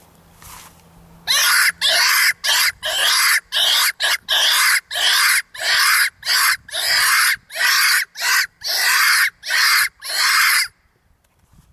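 Primos Double Cottontail two-reed coyote call, blown in a rapid string of about twenty short, harsh screeches that start about a second in and stop near the end. It imitates a cottontail rabbit screaming in distress.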